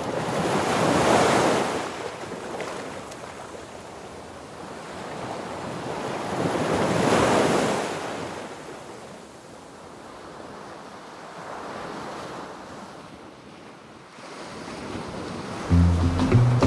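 Ocean surf: waves breaking and washing in, swelling and fading in long surges, with the two biggest about six seconds apart. Music with a beat comes in about a second before the end.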